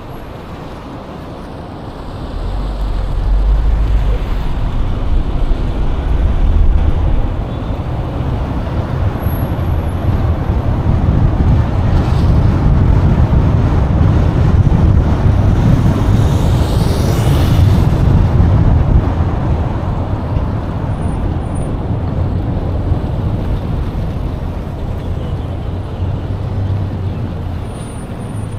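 Steady road-vehicle noise: engine and tyre rumble. It grows louder a few seconds in and swells most through the middle before easing off.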